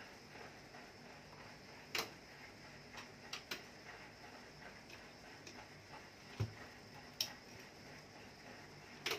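Irregular light clicks and taps as wire leads and a small electric fan motor are handled on a workbench, with one low knock about six and a half seconds in.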